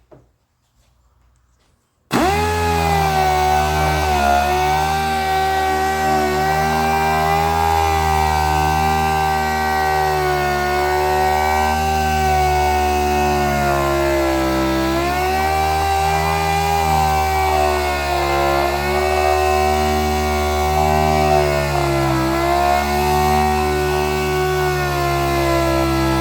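A handheld electric power sander switches on about two seconds in and runs steadily on a panel, its motor pitch dipping briefly several times as it is pressed and moved against the paint.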